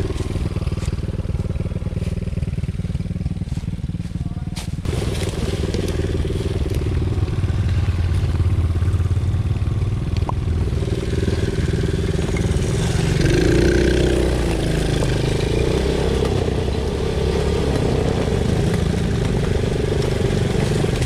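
Small ATV engine running steadily as the quad rides a dirt trail, its note rising and falling once about two-thirds of the way through, with tyres crunching over dry leaves and twigs.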